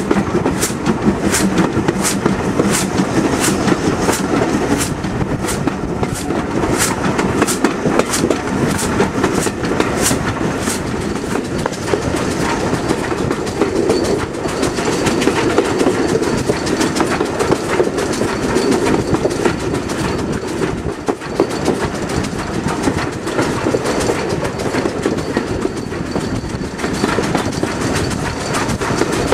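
Railway passenger coach running along the track at speed, its wheels clicking over rail joints in regular pairs for the first ten seconds or so, then a steady rumble and rattle of the moving train.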